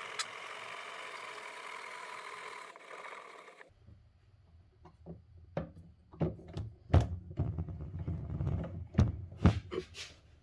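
Benchtop mini mill's motor running with a steady whine, cutting off abruptly a few seconds in, followed by irregular clunks and knocks.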